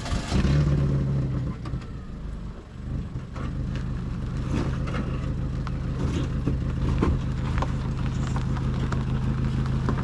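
Volkswagen Kombi engine revving hard, easing off about two seconds in, then running steadily. It is breathing through an exhaust with a large hole in it, which is costing it a lot of power.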